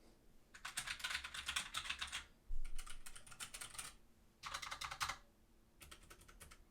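Rapid typing on mechanical keyboards in four short bursts of key clicks. The keyboards are a low-profile Keychron K3 with red switches and a full-size Razer BlackWidow Lite with orange switches, and the red switches are the quieter.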